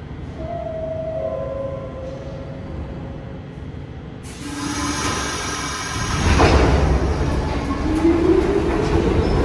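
New York City Subway train in the station. It is quieter at first with faint steady tones, then a heavy rumble builds about six seconds in. Near the end a motor whine rises in pitch as the train speeds up.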